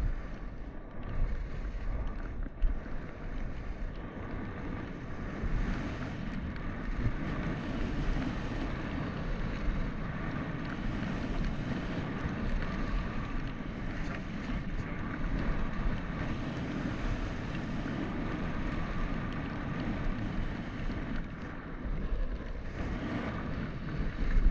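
Salomon skis sliding and scraping over packed snow in a steady downhill run, with wind buffeting the helmet camera's microphone as a continuous low rumble.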